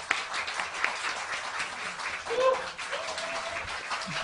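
Small audience applauding, with a brief voice calling out about halfway through.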